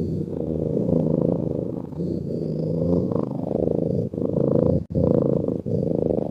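Cat purring: a continuous low rumble that swells and dips with its breaths, with three short breaks in the second half.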